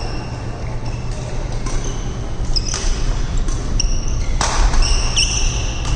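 Badminton rally: short high squeaks of court shoes on the hall floor and sharp racket strikes on the shuttlecock, the two loudest strikes about three and four and a half seconds in, over a steady low hum.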